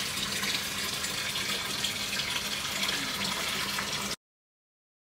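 Steady running water, cutting off abruptly about four seconds in.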